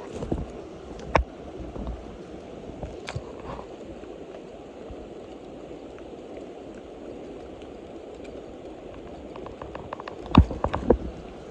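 Steady rushing of a mountain stream, with a few scattered clicks and knocks and a quick cluster of louder knocks near the end.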